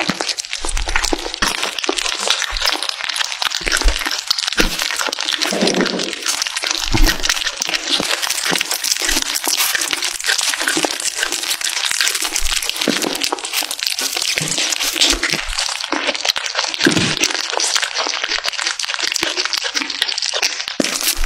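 Kittens licking and chewing a lump of raw beef liver at close range: a dense, continuous crackle of small licking and chewing clicks, with occasional low thumps.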